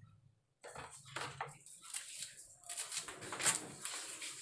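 Kitchen knife chopping greens on a wooden cutting board: quick irregular knocks, about three a second, starting about a second in after a brief silence.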